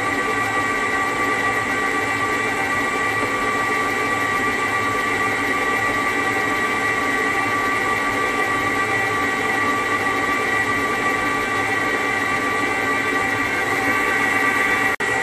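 Electric stand mixer running steadily, its motor giving a high whine while the beater works a butter, sugar and egg mixture in the steel bowl. The sound drops out for an instant near the end.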